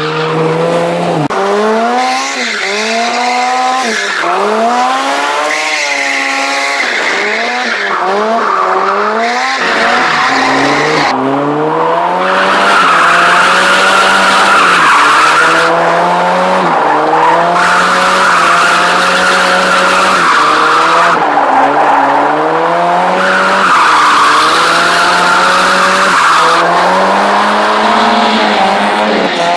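Mazda MX-5's four-cylinder engine revving up and dropping back over and over while the car is drifted, with tyres squealing. The squeal gets much stronger about a third of the way in.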